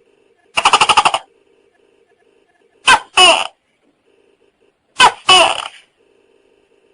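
Tokay gecko calling: a short rattling call, then two loud two-syllable "to-kay" calls, each a short note followed by a longer falling one.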